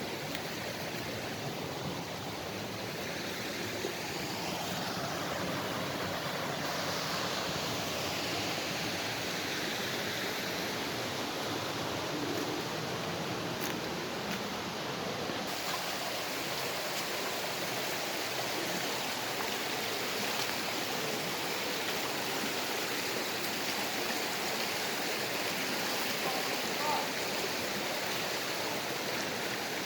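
Mountain creek rushing steadily over rocks, an even, unbroken wash of flowing water.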